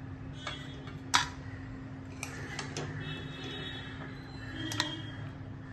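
A metal ladle clinks a few times against a kadhai and a metal serving bowl as cooked cabbage is scooped and served: short sharp clinks, the loudest about a second in and one with a brief ring near the end, over a steady low hum.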